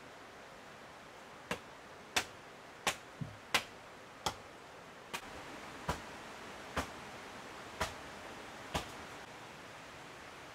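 A series of about ten sharp knocks, roughly one every three-quarters of a second, over a steady faint hiss.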